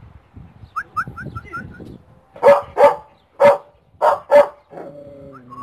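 Belgian Malinois barking: five loud, sharp barks in quick succession about halfway in, two pairs with a single bark between them.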